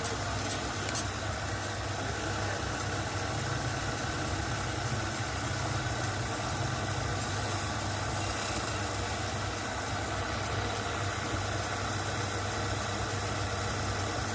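Steady hum of a running motor or machine, even throughout with no hammer blows.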